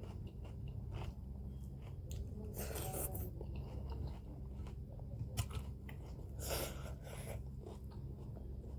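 A person eating close to the microphone: chewing with wet mouth clicks and occasional crunches, over a steady low hum.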